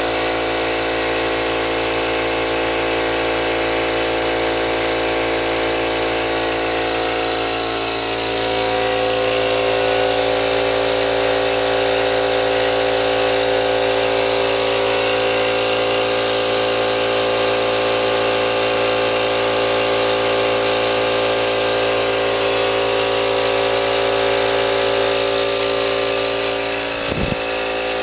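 Homemade double-acting engine built from scrap, running steadily on the workbench with a constant high mechanical whine. It gets slightly louder about eight seconds in, and there is a brief low thump near the end.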